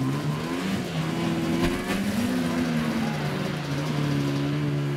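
Snowmobile engine revving up and down in short steps while the sled is stuck on the dirt climb, then holding a steady pitch for the last couple of seconds. A single sharp knock is heard about one and a half seconds in.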